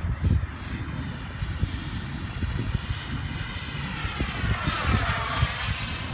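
F-15 fighter jet's twin turbofan engines roaring past. The sound swells to its loudest about five seconds in, with a high whistle dropping in pitch as the jet goes by. Wind buffets the microphone throughout.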